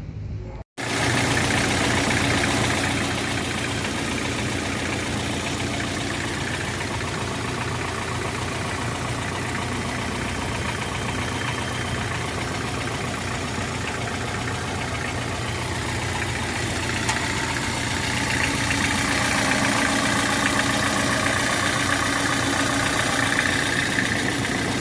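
Hyundai HR truck's turbodiesel engine idling steadily after a brief cut under a second in, running a little louder in its last few seconds. The engine is throwing oil out through the exhaust and is noisy, a fault the mechanic puts down to either the turbo or the engine itself.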